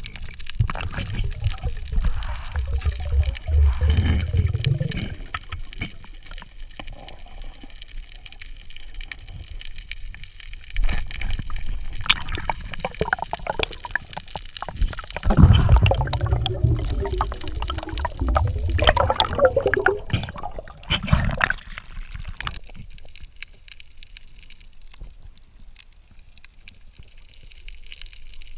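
Underwater water noise picked up by a diving camera: irregular low rumbles, gurgling and bubbling that swell and fade, busiest near the middle and quieter towards the end.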